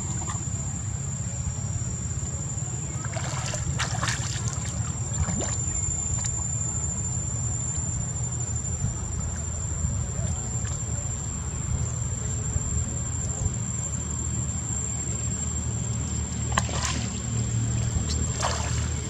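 Macaques swimming and splashing in shallow water, with a few short splashes about three to five seconds in and again near the end, over a steady low rumble and a constant thin high-pitched whine.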